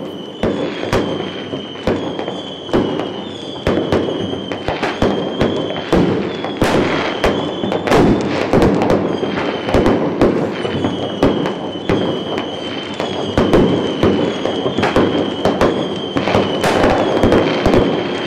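Fireworks going off: a dense run of bangs and crackling pops, with a high whistle that comes and goes in stretches of about a second.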